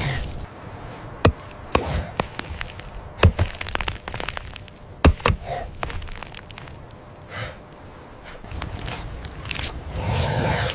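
A few sharp, irregularly spaced knocks and cracks of a hand axe striking dry wood and hardened mud, with scraping between strikes. A rougher, steadier noise comes in near the end.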